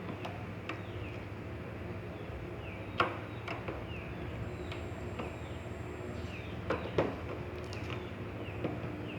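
Slime being squeezed and poked by hand, giving scattered sharp clicks and pops, the loudest about three and seven seconds in, over a steady low hum.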